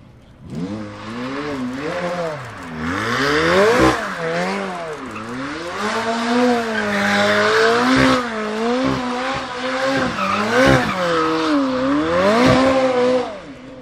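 McLaren 720S's twin-turbo V8 revving up and down over and over as the car spins donuts, with the rear tyres squealing.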